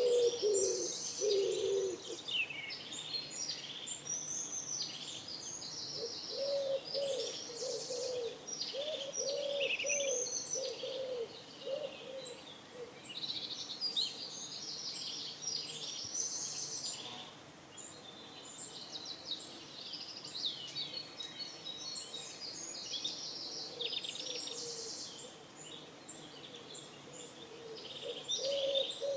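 Pigeons cooing in low, repeated bouts near the start, through the middle and again near the end, over continual chirping and trilling of small songbirds.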